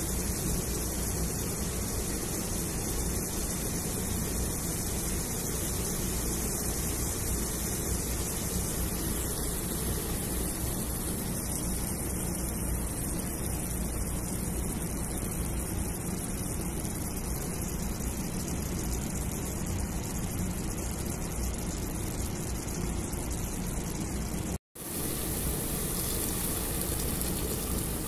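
Steady, even hiss with a low rumble from a pot of chicken cooking on the stove. It breaks off at a cut near the end, and water is then poured into the pot.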